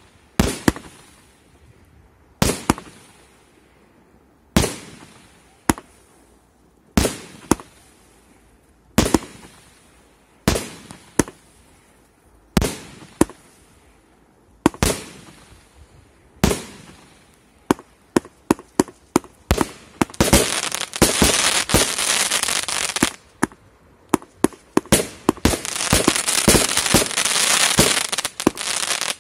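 A 136-shot 'Wonderful World' firework cake firing shot after shot. Each shot is a sharp bang that dies away, one every second or two at first. From about twenty seconds in the shots come fast and are overlaid with dense crackling.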